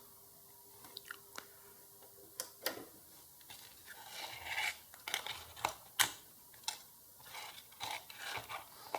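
Irregular small clicks, taps and rustling scrapes of a circuit board and tools being handled, busiest past the middle; a faint steady hum stops about two and a half seconds in.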